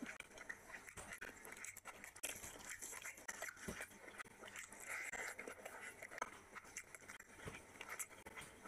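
Close-miked eating sounds: a man chewing and smacking his lips on mouthfuls of rice and mutton curry, with wet squelching as his hands work the rice and meat.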